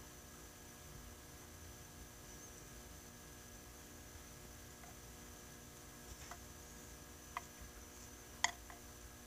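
Faint steady electrical hum, with a few light clicks in the second half, the sharpest about a second before the end: a wooden stick knocking against the walls of a small acrylic enclosure.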